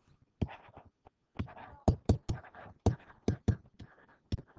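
Stylus handwriting on a writing surface: about ten sharp, irregular taps as the pen strikes down, with faint scratching between them.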